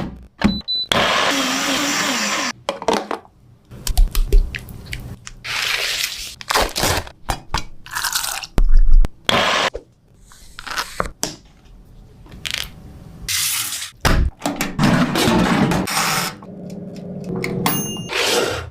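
Food-preparation sounds: a string of knocks, clicks, scrapes and crunches, with a stretch of steady hiss about a second in that lasts nearly two seconds.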